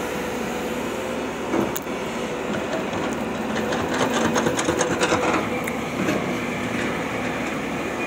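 JCB tracked excavator's diesel engine running steadily as the machine digs in water, with a spell of rapid metallic clattering about halfway through.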